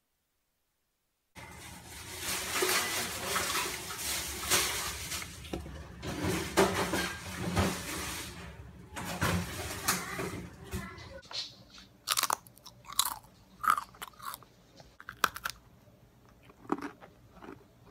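Dense crackling and crunching as fingers press into a cup of fake snow, followed in the last few seconds by a string of separate sharp crunches as a chocolate sandwich cookie is bitten and chewed.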